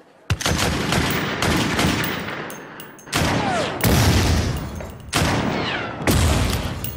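A series of loud, sudden bangs, about five, each dying away over a second or so, with fainter sharp cracks between them.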